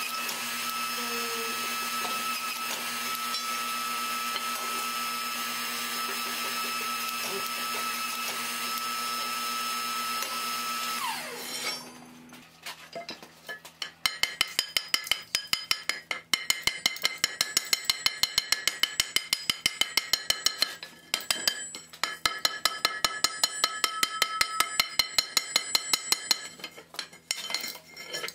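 An electric forging machine hums steadily, then spins down with a falling whine about 11 seconds in. From about 14 seconds, a hand hammer strikes hot steel on an anvil at roughly three blows a second, the anvil ringing with each blow, with short pauses twice.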